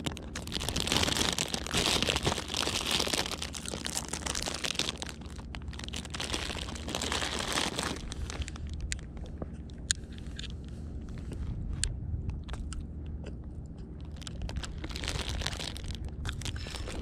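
Thin plastic bread bag crinkling and rustling as it is handled and opened, dense in roughly the first eight seconds, then softer, scattered crinkles and clicks.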